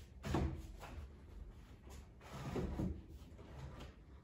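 Wooden dining chair being handled, knocking and bumping: one sharp knock just after the start and a double bump about two and a half seconds in.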